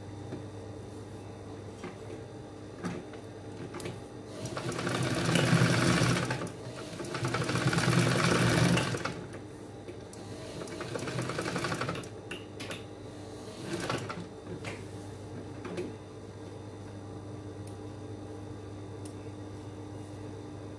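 Industrial flatbed sewing machine stitching fabric in bursts: two loud runs of about two seconds each starting about four and seven seconds in, then a quieter run around ten seconds in and a brief one near fourteen seconds. Between runs its motor hums steadily.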